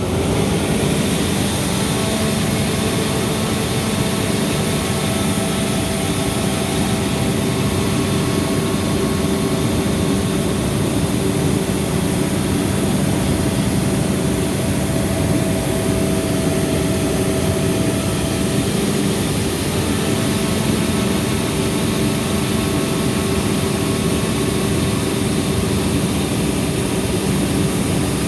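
Atlas Copco XAS 950 towable diesel air compressor running steadily with a constant loud engine drone and steady whine.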